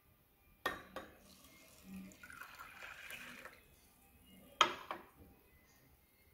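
Water poured into a glass mug of sago pearls for about two seconds, with two sharp clinks of glassware just before the pour and two more near the end.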